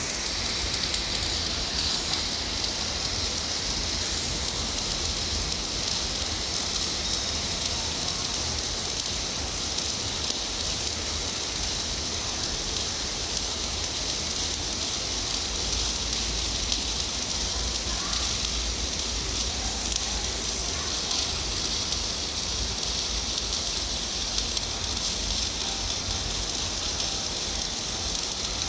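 Shielded metal arc (stick) welding on a carbon-steel pipe joint: the electrode arc crackles and hisses steadily, with a low hum underneath.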